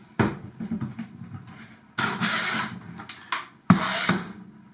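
Steel-bar parallel clamp handled with its sliding jaw loose, giving scraping and rattling noises with a sharp knock near the end as the clamp is stood upright on the bench. The jaw does not hold its set position and slides back to the end of the bar.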